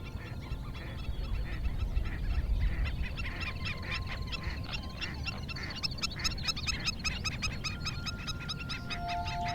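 A large flock of birds calling over one another, many short repeated calls overlapping, growing denser partway through, over a low rumble.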